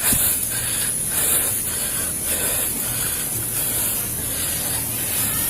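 A steady high hiss, with faint indistinct sounds beneath it.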